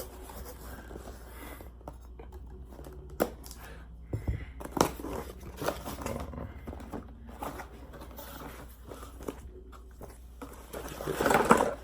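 Vanity light-bulb set being unpacked by hand: scattered clicks and knocks with crinkling and tearing of packaging, and a louder rustle near the end, over a steady low hum.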